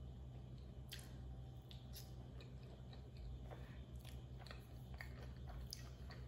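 Close-miked chewing of a mouthful of creamy penne pasta, with small wet mouth clicks scattered throughout, over a faint steady low hum.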